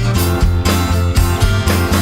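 Upbeat instrumental music with guitar and a steady beat.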